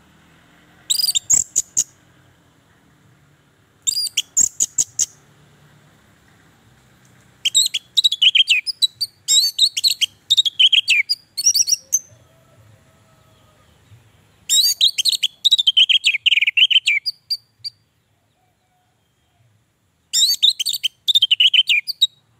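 Orange-headed thrush singing in five bursts of quick, high, falling notes, with short pauses between them. The middle phrases are the longest, running several seconds each.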